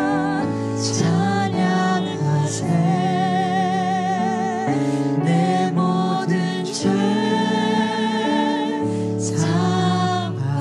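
Live worship band music: a voice sings held notes with vibrato over sustained keyboard chords, guitar and bass.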